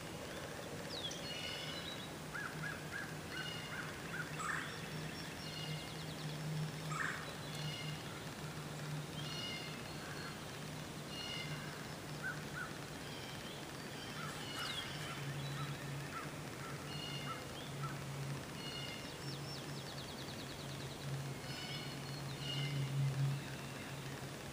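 Several wild birds calling and singing, with short phrases repeated every second or two and a few quick trills, over a steady low hum.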